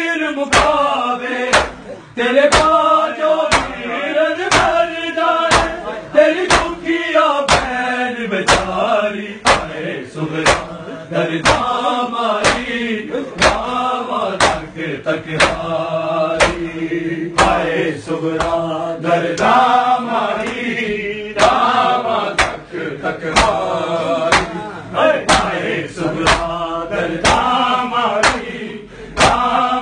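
Men chanting a noha together, with loud rhythmic slaps of open hands on bare chests (matam) keeping a steady beat of roughly three strikes every two seconds.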